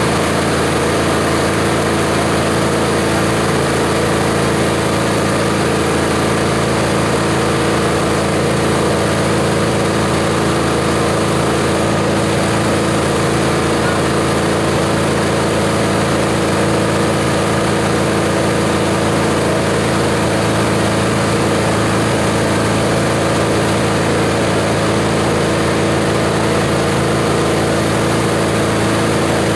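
Multi-purpose chopper-shredder machine running at a constant speed: a loud, even mechanical drone with a fixed hum that does not change in pitch.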